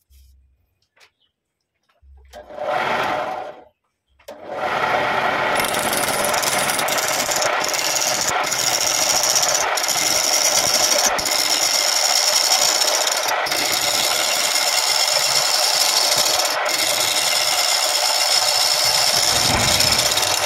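Wood lathe running with a tool working against the spinning wood, starting about four seconds in and going on steadily, with a few very brief breaks where the tool lifts off. Before that there is near silence, broken by one short burst of the same noise.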